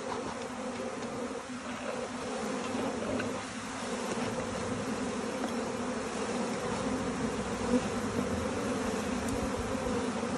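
Honeybees buzzing over an open hive, a steady hum from many bees at once, as they are smoked down off the top bars. One short knock stands out near the end.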